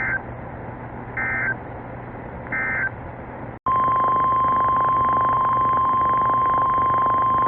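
NOAA Weather Radio broadcast over static: three short warbling digital data bursts about 1.3 s apart, the EAS end-of-message code that closes the thunderstorm warning. After a brief dropout comes the steady 1050 Hz weather radio warning alarm tone, held about four seconds, which heralds the next warning.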